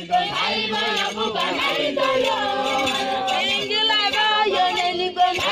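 A group of women and men singing a traditional Tepeth welcome-dance chant together, many voices overlapping.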